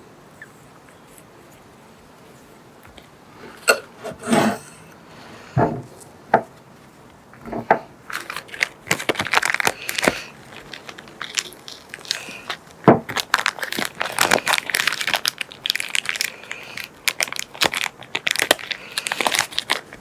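Hands working at a bench: a few sharp knocks, then a long run of crinkling and rustling broken by clicks.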